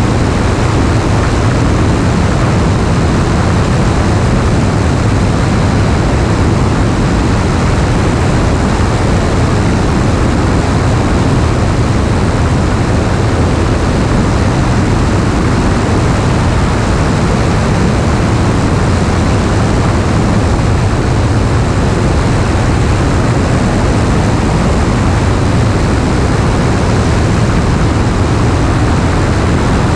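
Piper PA-28-161's four-cylinder Lycoming O-320 engine and propeller droning steadily in flight, under an even rushing noise of airflow.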